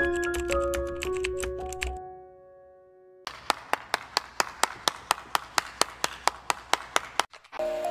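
Light background music with plinking notes fades out about two seconds in. After a short pause, one person claps with quick, even claps for about four seconds. New music starts near the end.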